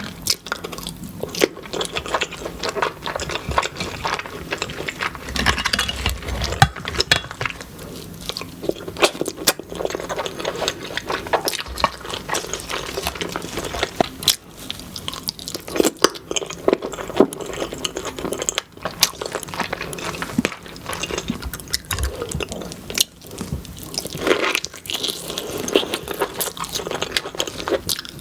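Close-miked eating of a saucy seafood boil: wet chewing and biting with scattered crunches and many small irregular clicks.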